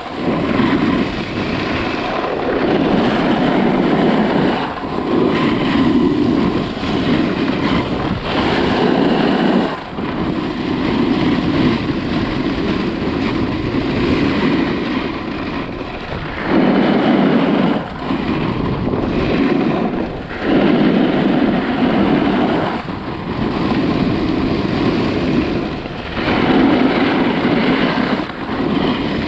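Edges scraping and carving on firm groomed snow during a downhill run, with wind buffeting the microphone. It comes in spells of two to three seconds broken by short lulls as each turn finishes.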